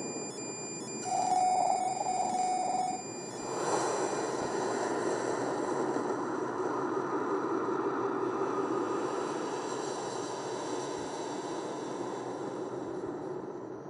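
Sci-fi sound design: two electronic beeps over high thin tones, then from about three and a half seconds in a steady droning hum of a spaceship interior.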